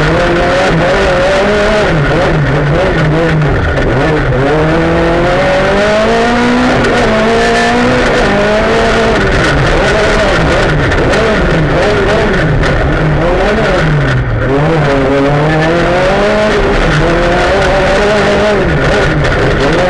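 Rally car engine heard from inside the cabin at full stage pace, revving up and dropping back again and again through gear changes, with one brief lift-off about two-thirds of the way through, over steady gravel and road noise.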